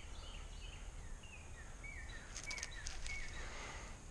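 A bird singing a series of short notes, each sliding down in pitch, the run stepping lower as it goes, over a steady low rumble. There are a few faint clicks in the middle.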